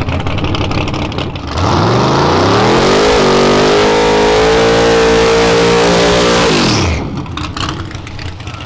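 A 1000-hp drag car's engine revving up sharply and held at a steady high rpm for a few seconds during a burnout, rear tyres spinning, then dropping off abruptly as the throttle is released.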